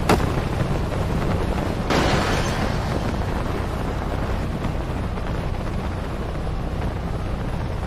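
Steady loud rumbling of wind and engine noise, with a louder swell about two seconds in.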